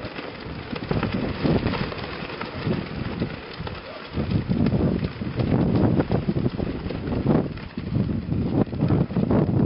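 Strong gusting wind buffeting the microphone, with the cloth carp streamers (koinobori) flapping hard in it. The gusts ease for a moment about four seconds in, then come back louder.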